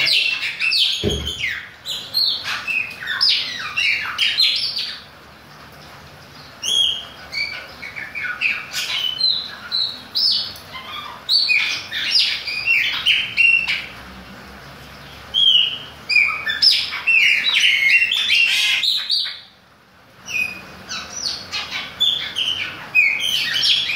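Chopi blackbird singing loud bursts of rapid, varied high chirping phrases, broken by short pauses three times.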